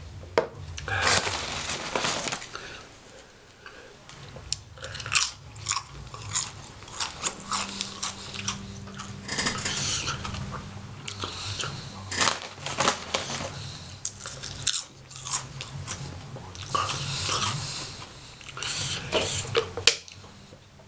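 Potato chips being bitten and chewed: runs of irregular, crisp crunches with short pauses between bites.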